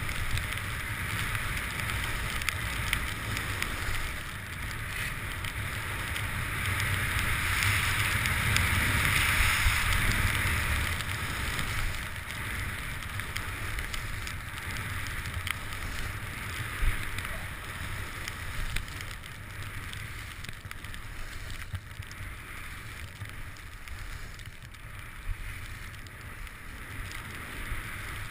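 Skis sliding and carving on packed snow with a rush of wind, a steady hiss that swells for a few seconds about a third of the way in. A few sharp clicks stand out.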